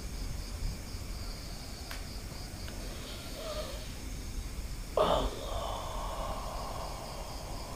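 Crickets chirp steadily. About five seconds in, a man lets out a sudden loud breathy exhale that is held for nearly three seconds.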